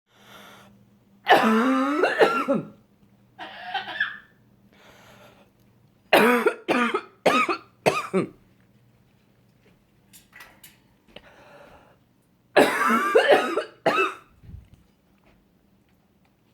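Amazon parrot imitating a person's coughing, in bouts of coughs. There is a long bout a second or so in, a quick run of four coughs midway, and another long bout near the end.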